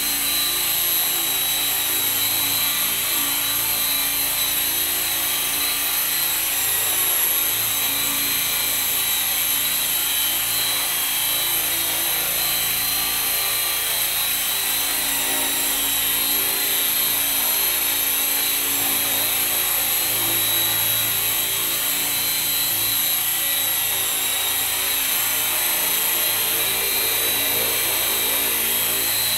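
Esky Belt CP electric radio-controlled helicopter running and hovering: a steady high-pitched whine of the motor and drive over a lower rotor hum that wavers slightly as it holds its hover.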